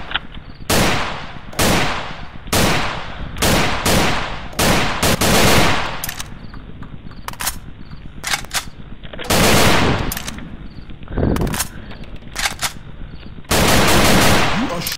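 Gunfire sound effects mixed over the footage: a string of single shots and short bursts at uneven spacing, with two longer bursts of automatic fire around ten seconds in and near the end.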